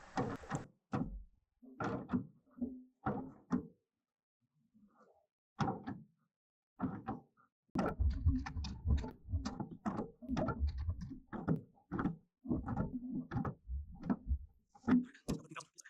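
Irregular knocks, clunks and rattles of hand work on the bandsaw mill's metal parts, in quick runs with short pauses and a stretch of heavier, deeper thumps in the middle.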